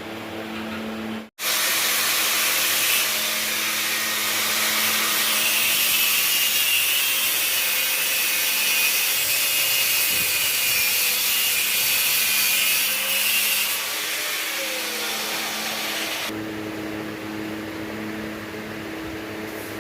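Power tool cutting or grinding under load with a loud, even rasp that starts suddenly about a second in and stops about sixteen seconds in, leaving a steady low machine hum.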